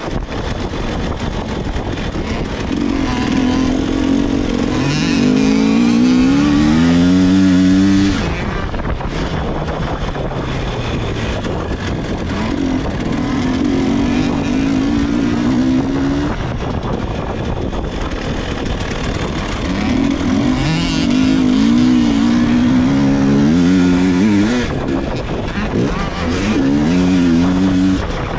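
300 cc two-stroke enduro motorcycle ridden hard: the engine revs climb in pitch under acceleration, then drop sharply as the rider shifts or rolls off, several times over. The loudest, highest-revving runs come about four to eight seconds in and again from about twenty seconds in.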